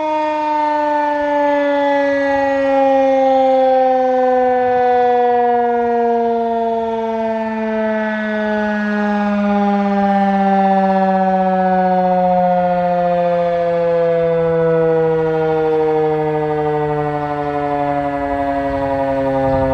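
Federal Signal 2001-DC roundback outdoor warning siren winding down after a full-alert (steady tone) test, its loud tone falling slowly and steadily in pitch.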